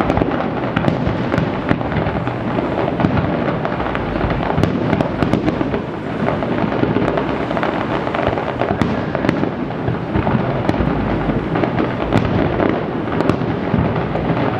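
Fireworks display going off continuously: a dense rumble of booming shell bursts mixed with many sharp crackles and cracks, echoing off the surrounding buildings.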